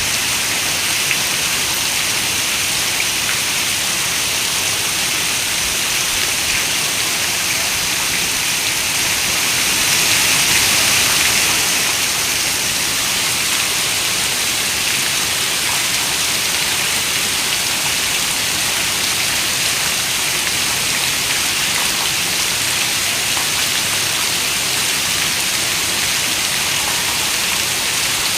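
Steady rain falling, an even hiss of drops with fine patter on a surface, swelling a little about ten seconds in and then settling back.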